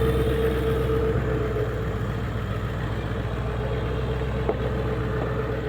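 Ford Econoline van's engine running steadily as the van creeps over a rocky trail, a low rumble with a constant faint whine, and a couple of light knocks about four and a half seconds in.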